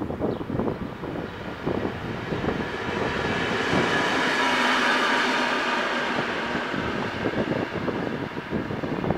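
DR class 203 (rebuilt V100) diesel-hydraulic locomotive running light past: engine and wheels on the rails swell to a peak about four to five seconds in, then fade as it moves away. Wind buffets the microphone at the start and near the end.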